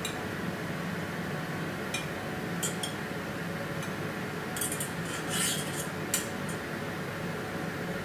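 Light clinks and scrapes of a metal utensil against a ceramic plate as food is plated, a few scattered strokes with the sharpest about six seconds in, over a steady background hum.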